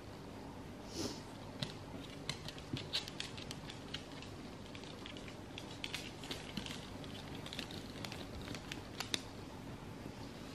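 A Shetland sheepdog puppy's claws clicking and tapping irregularly on a hard floor as she steps about, with a towel rustling.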